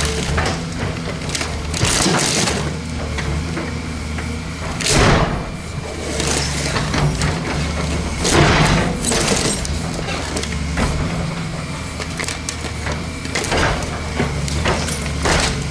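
Volvo EC210CL excavator's diesel engine running steadily under load, with repeated crunches and crashes of sheet metal and plastic as the bucket crushes and tears at a dishwasher. The loudest crashes come about five seconds in and again a little past halfway.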